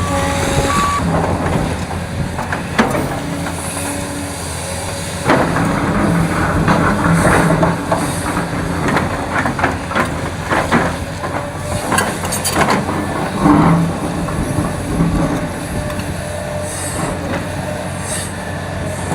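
Heavy diesel machinery running steadily as a large excavator loads a dump truck, with repeated metallic clanks and scraping of bucket on rock and steel through the middle of the stretch. A truck's reversing beeper sounds briefly at the start.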